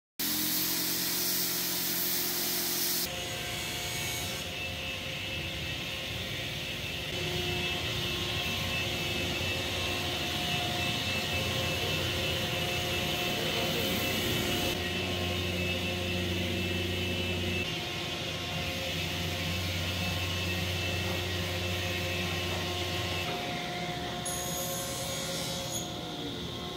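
Woodworking power tools running: a handheld electric sander working a cherry plywood cabinet side, over a steady motor hum from shop machinery. The machine sound changes abruptly several times.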